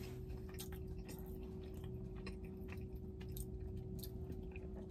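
A person chewing a mouthful of soft chocolate-chip cookie close to the microphone: faint, irregular wet mouth clicks over a steady low hum.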